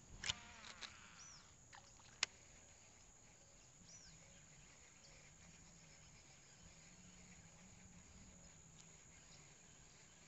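Near silence: faint outdoor ambience with a few small clicks in the first couple of seconds, two short faint chirps (about a second in, and again at about four seconds), and a faint wavering low buzz through the rest.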